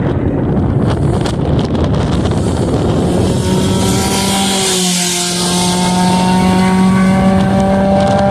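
Volkswagen Gol 1600 race car engine under acceleration, its pitch climbing slowly and steadily. For the first three seconds it is buried in rushing, wind-like noise before the engine tone comes through clearly.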